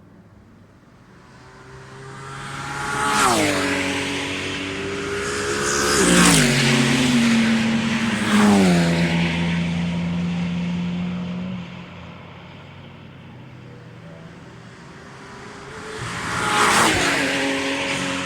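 Race cars passing one after another at speed, each engine note dropping in pitch as it goes by. Three pass in quick succession in the first half and a fourth near the end.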